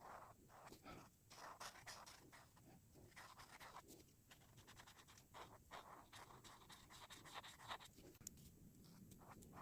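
Faint, irregular scratchy strokes of a coloring tool on paper, each lasting a fraction of a second, with a few light ticks near the end.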